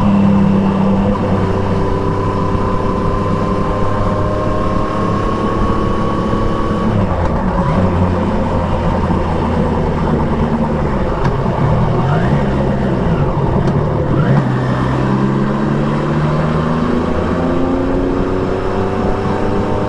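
Triumph Trident 660's inline three-cylinder engine through an Akrapovic exhaust, with wind and road noise. The engine note holds steady, drops about seven seconds in, dips and rises several times around the middle, then climbs steadily as the bike accelerates near the end.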